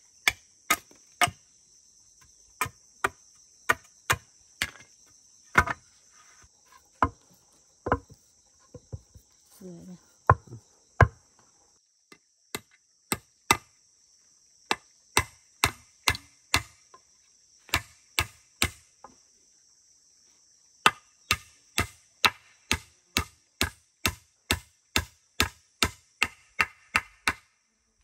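Hammer driving nails into a wooden plank: a long series of sharp blows, irregular at first, then in steady runs of about two blows a second.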